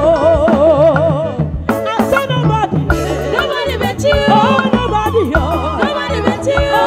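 Live band music with women singing into microphones over drum kit and bass. The first second and a half is a held sung note with a wavering vibrato, then the singing moves on over the same beat.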